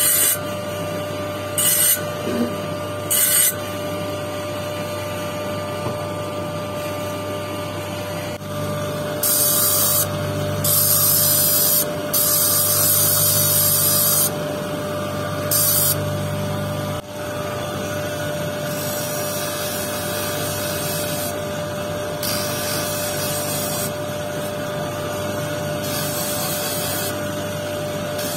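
Electric motor of a lapidary grinding and polishing machine running with a steady hum, while a quartz stone on a dop stick is pressed against the spinning disc again and again, each contact a hissing scrape lasting from a moment to a couple of seconds.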